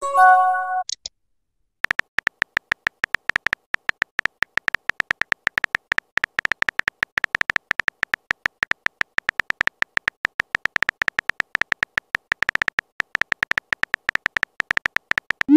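Texting-app sound effects: a short electronic message chime of a few stacked tones, then, after a brief pause, a rapid run of keyboard-tap clicks for simulated typing.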